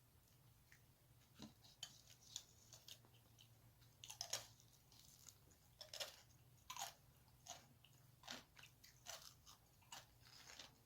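A person chewing crunchy food: irregular crisp crunches and bites, a few of them louder around the middle, over a faint steady hum.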